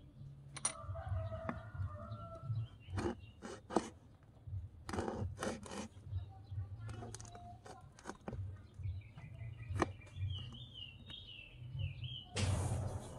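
A small kitchen knife slicing red chilies on a wooden cutting board: sharp taps in short clusters, with a louder rasping noise just before the end. Fowl and other birds call in the background over a low hum.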